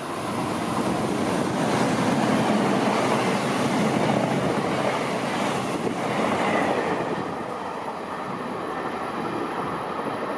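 Locomotive-hauled passenger train running through a station at speed: a loud rush and rumble of wheels on the rails. It builds over the first two seconds, is loudest for a few seconds, then eases as the train passes.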